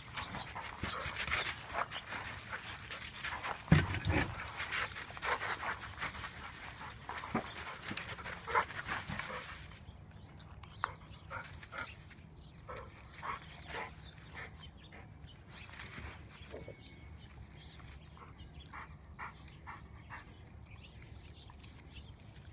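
Dogs running about on gravel: a dense crunching and scuffling of paws on loose stones for about the first ten seconds, with one sharp knock about four seconds in, then it dies down to scattered small scuffs as the dogs settle into play.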